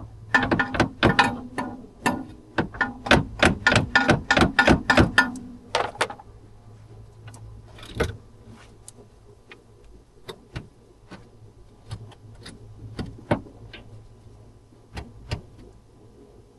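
A rapid run of sharp knocks, about three or four a second, for the first six seconds, then scattered single clicks, over a steady low hum.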